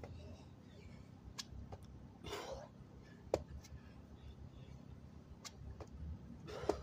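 A man breathing hard during a set of burpees, with two heavy exhales, one about two and a half seconds in and one near the end as he drops into the push-up. A few sharp light taps are scattered through it, under a low steady rumble.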